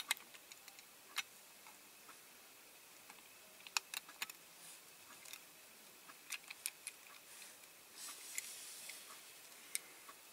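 Faint, scattered small clicks and taps of a diecast model car and its parts being handled and test-fitted, with a brief soft rustle near the end.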